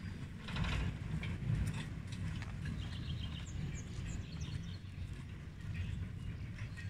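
Cable-hauled slipway carriage of the Elbląg Canal boat railway, carrying a passenger boat and rolling slowly up its rails, powered by water: a steady low rumble with a few light clanks. A bird chirps a few times around the middle.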